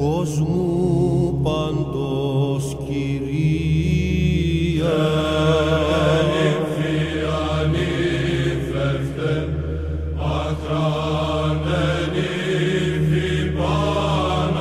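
Background music: Greek Orthodox Byzantine chant, a held low drone under a wavering, ornamented vocal line that grows fuller about five seconds in.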